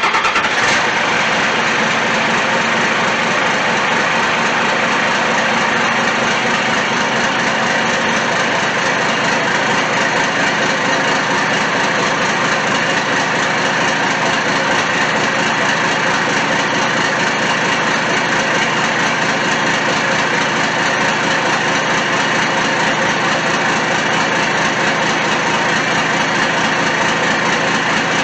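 Electric air compressor of a train-horn kit running steadily, pumping up the horn's air tank, with no pressure switch to cut it off.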